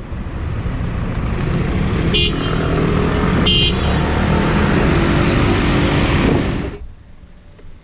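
Loud wind and road noise from riding a scooter through traffic, cutting off suddenly near the end. A vehicle horn gives two short beeps, about two and three and a half seconds in.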